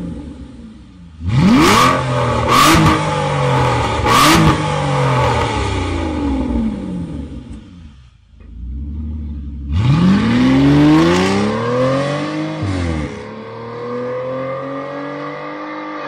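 Aston Martin Rapide S's V12 revved while parked, through an aftermarket Fi Exhaust system. Three quick throttle blips, each with a sharp crack, come in the first few seconds and the revs then fall away. About ten seconds in comes a long rev climb, which drops back to a steady raised idle.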